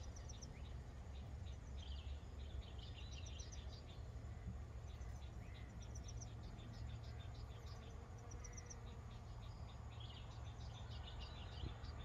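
Outdoor vegetation ambience: insects chirping in rapid clusters of short, high ticks and trills, with a few brief bird chirps, over a steady low rumble.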